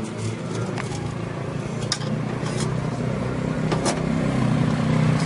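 An engine running nearby and growing steadily louder, with a few sharp clicks over it.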